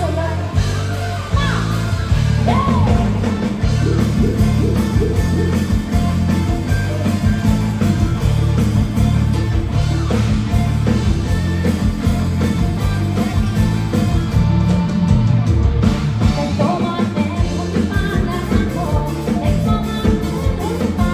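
Live concert band music with a singer over a heavy, steady bass beat.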